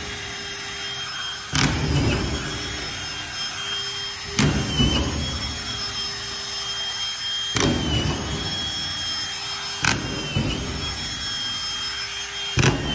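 Hilti SD 5000-22 cordless drywall screw gun running steadily with its whine held high, driving five screws into drywall about every two to three seconds. Each screw gives a sharp clack as the nosepiece clutch engages, then a short grinding burst as the screw bites and sinks, and the motor's pitch sags briefly under the load.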